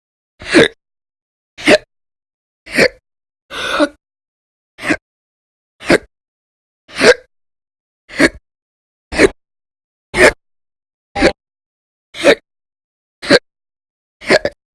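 A woman's loud, violent hiccups, one about every second in a steady run, with one longer, breathier hiccup a little before four seconds in. They are part of a chronic hiccup bout that lasts for hours each day.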